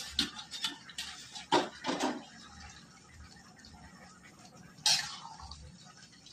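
Metal lid and spatula clanking against a metal kadai, twice about a second and a half in, then a short scrape about five seconds in as a watery vegetable curry is stirred.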